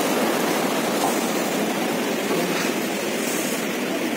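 Glacial mountain stream rushing over rocks, a steady roar of water.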